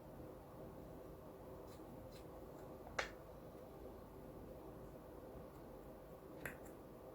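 Two sharp clicks, the first about three seconds in and louder, the second near the end, with a couple of fainter ticks before them, over a faint steady hum.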